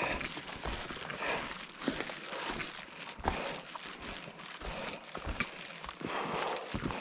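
Footsteps and scuffs on a steep, slippery mountain trail during a descent, with a small bell ringing high and steady in stretches that start and stop as the walking goes on.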